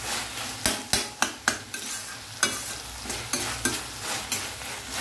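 Vegetables in sauce sizzling and stir-frying in a stainless steel kadai on high flame, with the stirring utensil scraping and tapping against the steel in a quick, uneven series of strokes.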